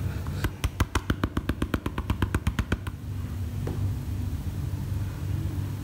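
Rapid sharp taps on a plastic gold pan, about nine a second for a little over two seconds, then stopping, over a steady low hum.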